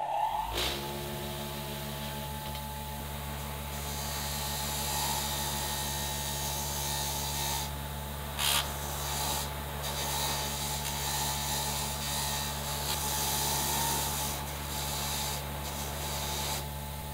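Bench grinder motor coming up to speed and settling into a steady hum. From about four seconds in, a caliper-brake return spring held against the spinning wheel adds a loud hiss that dips briefly when the spring is lifted off, as rust is cleaned from the spring.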